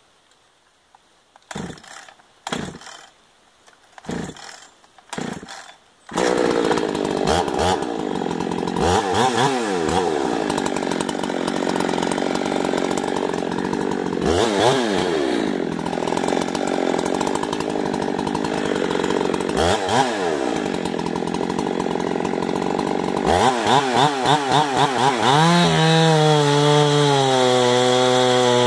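Two-stroke chainsaw: a few short sputters, then the engine catches about six seconds in and runs loud and continuous. Its speed dips and climbs back several times, then holds a steadier, lower pitch near the end.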